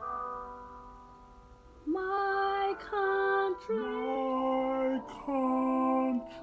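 A held instrument chord fades away, then a girl sings five slow, held notes, each just under a second long with short breaks between them.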